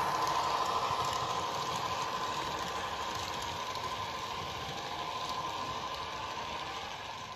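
Model train running along the layout's track: a steady running hum with a held whine, slowly fading.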